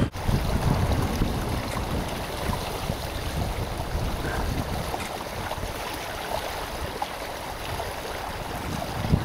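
Water rushing and splashing along the hull of a Sailfish 18 sailing yacht under way, with wind buffeting the microphone as a steady low rumble.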